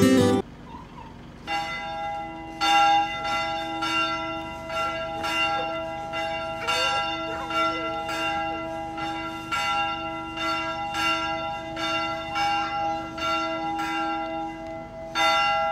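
Church bells ringing from the bell tower, steady strokes about every two-thirds of a second that overlap and hang on. The ringing starts about a second and a half in, with a louder stroke near the end.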